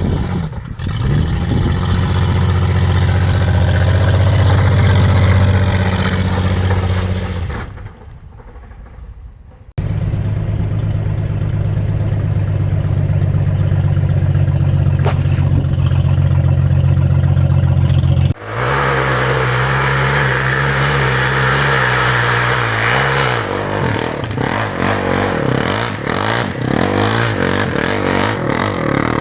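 Car engine running steadily, in several clips with abrupt cuts between them. In the last clip the engine pitch wavers up and down, with a lot of rattling and clatter.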